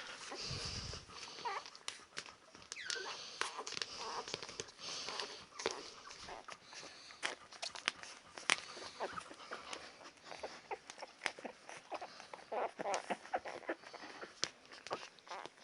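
Ten-day-old Labrador retriever puppies giving faint short squeaks and whimpers, among many small scattered clicks and rustles.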